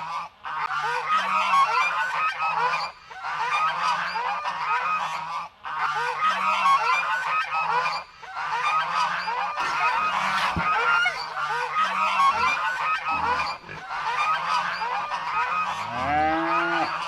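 A flock of geese honking, many calls overlapping, with short breaks every few seconds.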